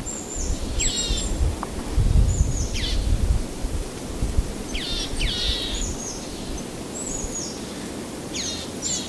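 Birds calling outdoors: short, high calls that sweep down in pitch, given in pairs or singly about half a dozen times. Underneath runs a steady hiss and a low rumble, loudest from about two to three and a half seconds in.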